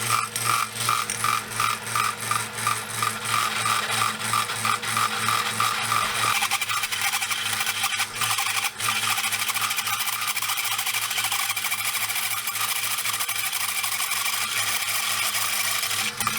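Old 1981 drill press running under load as a step bit cuts a large hole through a steel tube: a steady motor hum with a rhythmic chatter from the bit, about three pulses a second at first and quicker after the middle. The step bit is really working the old drill press.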